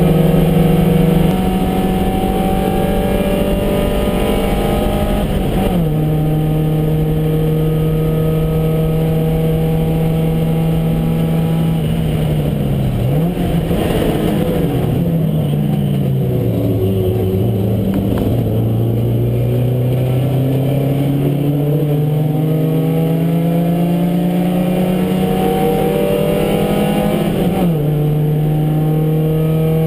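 Porsche 924 race car's four-cylinder engine heard from inside the cabin under hard acceleration. The revs drop suddenly with an upshift a few seconds in, fall in steps around the middle as the car brakes and downshifts, then climb steadily for about ten seconds to another upshift near the end.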